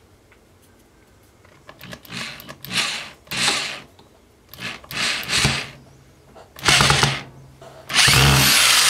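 Power drill driving a wood screw through a metal coat hook's mounting hole into a wooden board. The drill runs in a string of short bursts, then runs steadily near the end.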